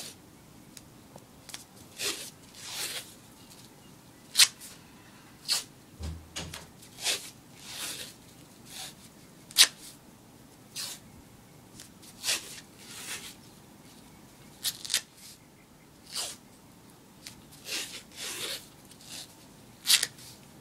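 White athletic tape being pulled off the roll and wrapped around an ankle: a string of irregular short rips and crackles, some sharp and quick, others softer and drawn out.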